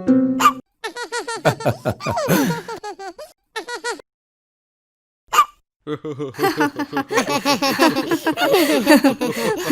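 Cartoon characters laughing and giggling in short, squeaky bouts, with one short sound alone about five seconds in.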